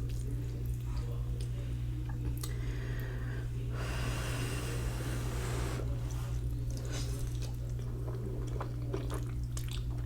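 Ramen noodles being eaten close to the microphone: small wet mouth clicks and chewing, with a long slurp about four seconds in lasting about two seconds. A steady low hum sits under it all.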